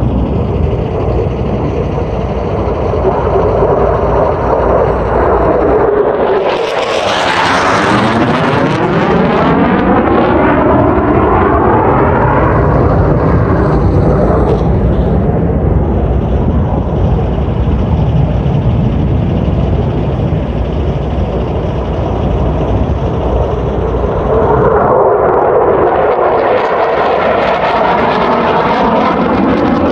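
Military fighter jets flying low overhead: loud, continuous jet engine noise that swells and sweeps in pitch as one passes about seven seconds in, and again as another comes over near the end.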